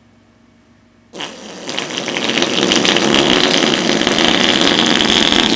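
A long, loud raspberry blown against the skin of the arm to mimic a fart, lips flapping with a fast rattle. It starts about a second in, swells, then holds.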